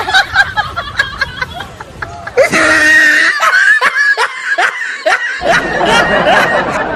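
People laughing in repeated bursts of cackles and giggles, which grow much louder about two and a half seconds in.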